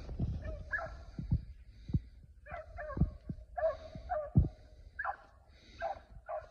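Beagles baying on a rabbit's trail: a string of short, bending yelps and bays, some close together, the hounds giving voice as they run the scent. Brief low thumps come in between.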